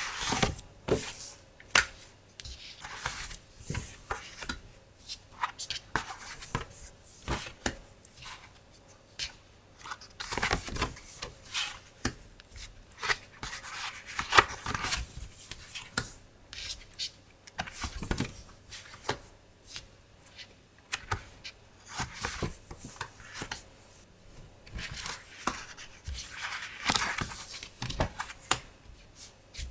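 Hands handling stationery such as tape rolls, stickers and deco papers: irregular paper and packaging rustling, with many light taps and clicks.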